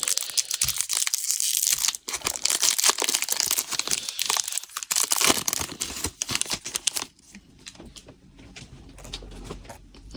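A trading card pack's wrapper being torn open and crinkled: dense crackling for about seven seconds, then much quieter handling near the end.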